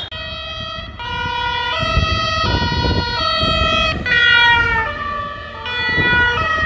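Italian police two-tone siren alternating between a high and a low note about every three-quarters of a second, from the police escort vehicles passing. The notes slide down in pitch about four seconds in as it goes by, over low engine noise.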